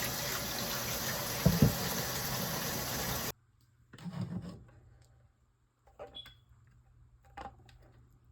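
Kitchen tap running water into a sink as a juicer part is washed by hand, with a knock about a second and a half in. The water sound cuts off abruptly about three seconds in, leaving a few faint knocks and clicks.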